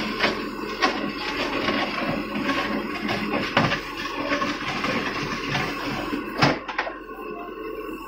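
Terex TLB 740S backhoe loader digging into broken concrete rubble: its diesel engine runs steadily while stones clatter and the bucket scrapes and knocks on rock, with one loud knock about six and a half seconds in.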